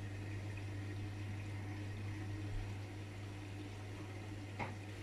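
AEG Lavamat washing machine running its service test: a steady low hum with a faint wash of water noise, and a single click near the end.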